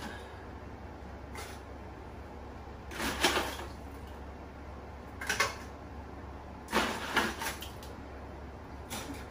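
Metal kitchen tongs clattering against plastic coolers and a stockpot as crabs are lifted out and dropped into the pot. The clatter comes in short bursts every second or two, loudest about three seconds in.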